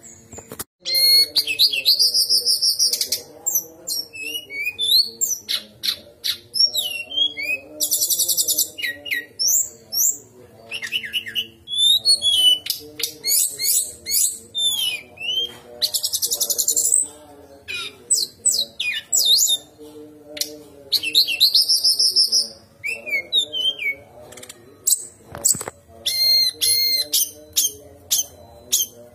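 Brown-chested jungle flycatcher (sikatan rimba dada coklat) singing a loud, varied song. Phrase follows phrase, made of rapid trills, sweeping high whistles and sharp chattering notes, with short pauses between them.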